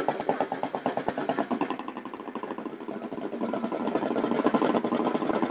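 An engine running at low speed, its separate firing beats plainly audible; it drops back a little about two seconds in, then comes up louder again.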